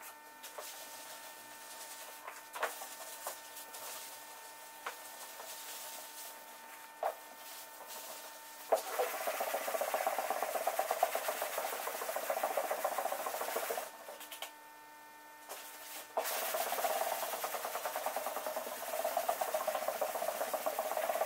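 Dry hand sanding of a primed car door with a hard sanding block and 320-grit abrasive: a scratchy rubbing rasp in two stretches of about five seconds each, with a short pause between. The first several seconds hold only a few light knocks as the block and paper are handled.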